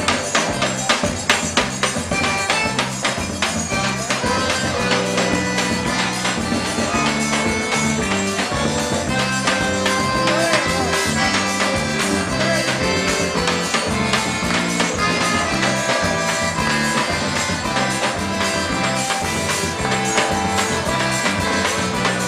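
Live forró: a piano accordion playing the melody over a drum kit and jingling hand percussion keeping a steady beat.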